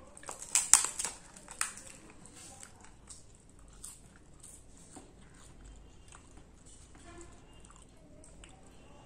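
Fried papad cracking in a quick cluster of sharp, loud crunches during the first two seconds, followed by quieter, wet chewing of rice and curry with small clicks.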